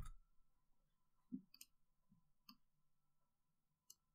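Near silence broken by a few faint computer mouse clicks, spread a second or so apart.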